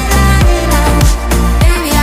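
Background music: electronic dance track with a heavy bass and a steady beat of about two drum hits a second.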